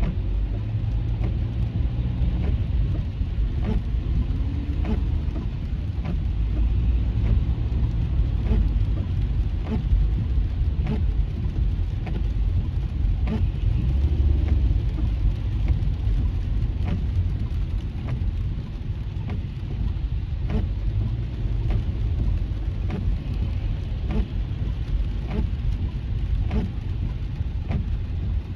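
Steady low road and engine rumble heard inside a moving car, with raindrops ticking irregularly on the windshield and roof in heavy rain.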